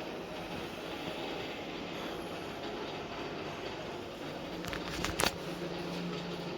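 Train running with a steady rumble; a low hum sets in about four and a half seconds in, and two sharp knocks come about five seconds in.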